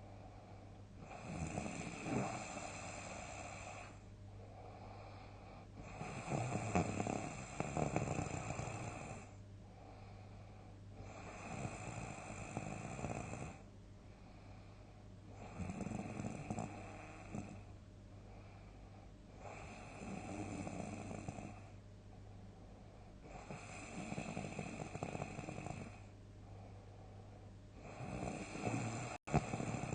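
A sleeping person's big snores in a steady run, one long rasping snore about every four seconds, seven in all.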